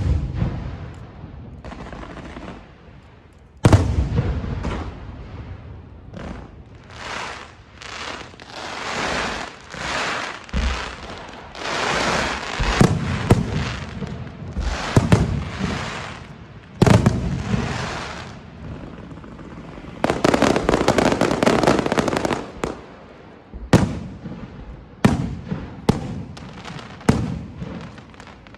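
Aerial fireworks going off: shells burst with sharp bangs and rumbling echoes, the loudest about four seconds in and again past the halfway mark. Between the bangs come hissing and crackling, with a dense stretch of crackle about two-thirds of the way through.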